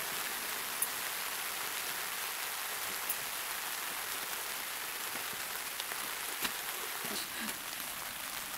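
Steady rain falling on the tent fabric, an even hiss, with a few faint clicks.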